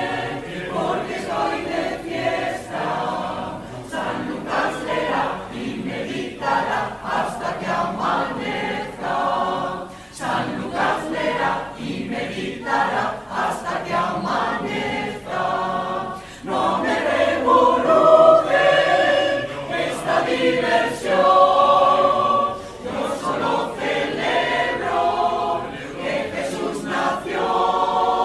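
Mixed choir of men's and women's voices singing a Christmas carol, unaccompanied-sounding, with sustained sung notes changing every second or two.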